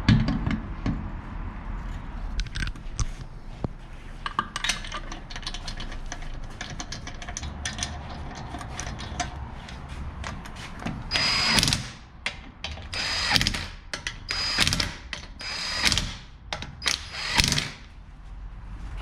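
Shop tool work: scattered clicks and metal knocks, then a power tool run in five short bursts of about a second each, each with a high whine.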